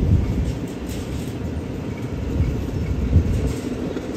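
Freight train pulling out of the station, a steady low rumble of rolling wagons with a few heavy knocks.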